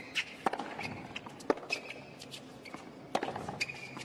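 Hard-court tennis rally: sharp pops of racket strikes and ball bounces about a second apart, the loudest about one and a half seconds in. Between them come short high squeaks of tennis shoes on the court.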